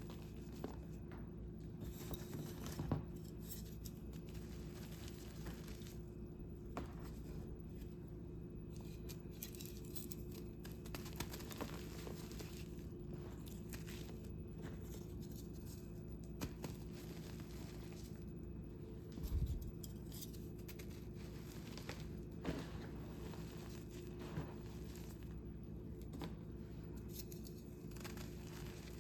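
Gym chalk being crushed and crumbled by hand close to the microphone: irregular dry crunching and crackling with sharper snaps here and there, over a steady low hum. A low thump comes about two-thirds of the way through.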